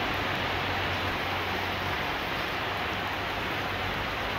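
A steady, even rushing hiss with a faint low hum underneath, unchanging throughout.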